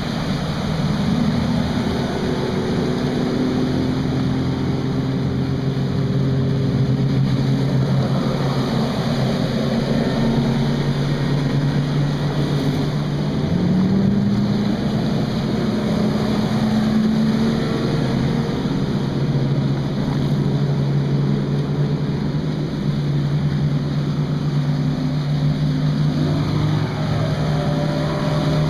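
Outboard motors on tournament fishing boats running at high speed as boats pass one after another. The engine note shifts in pitch as each boat goes by, over a steady rush of wind and water.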